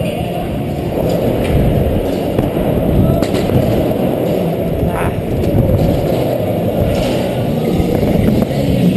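BMX bike tyres rolling over wooden and concrete skatepark ramps: a steady low rumble, with a few sharp knocks about three and five seconds in.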